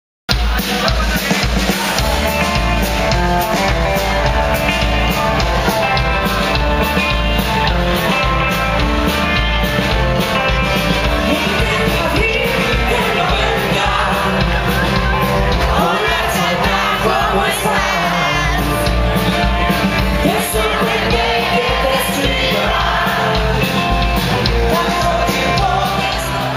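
Live rock band playing with a singer over guitar and a steady drum beat.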